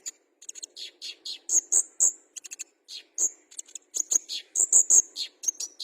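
Kolibri ninja sunbird singing: a fast, uneven run of short, sharp, high chirps and brief trills, several a second.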